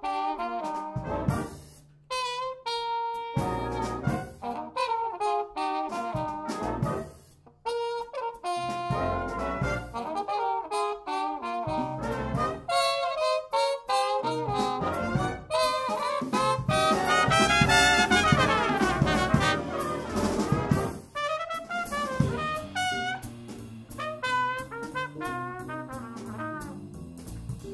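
Big band jazz: trumpets played with rubber plunger mutes, together with trombones, in short punchy phrases. The band breaks off briefly about two seconds in and again about seven seconds in, then plays a longer, busier passage.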